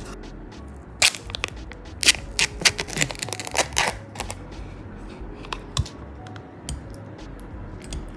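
Kitchen handling noises: a quick run of sharp clicks, crackles and knocks for about three seconds, then a few single clicks, over soft background music.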